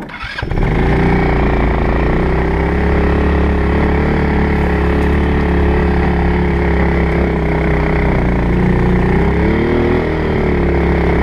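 Small utility vehicle's engine running under way over rough ground, heard close up. It comes up loud about half a second in, then holds a steady pitch, rising briefly and falling back about ten seconds in.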